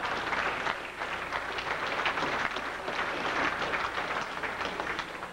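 Audience applauding, recorded on a VHS camcorder.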